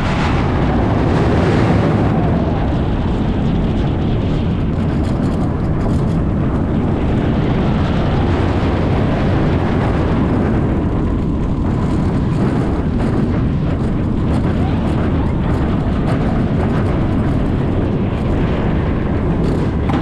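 Loud, steady rush of wind over the microphone with the rumble of a roller coaster train in motion, on a ride aboard the SheiKra dive coaster.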